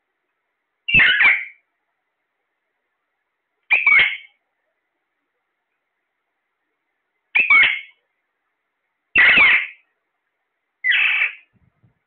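Alexandrine parakeets calling: five short, loud squawks about half a second each, spaced a couple of seconds apart, with silence between.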